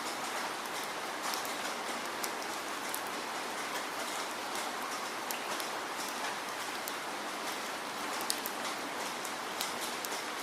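Steady falling rain: a continuous hiss with many sharp drop ticks scattered over it.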